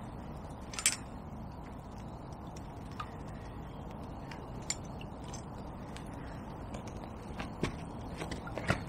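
Light clicks and knocks from an angler handling a float rod and centrepin reel while playing a hooked fish, over a steady outdoor background hiss. There is one sharp click about a second in, a few faint ones after it, and a cluster of small knocks near the end.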